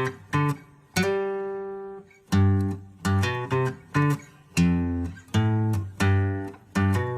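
Instrumental music intro: acoustic guitar strumming rhythmic chords that ring out between strokes, over a bass line.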